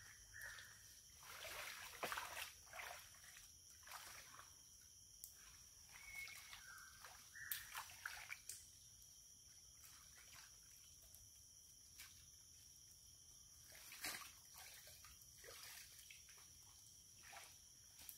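Faint, scattered splashing and sloshing of feet and hands in shallow muddy floodwater as fallen areca nuts are gathered from it, over a faint steady high hum.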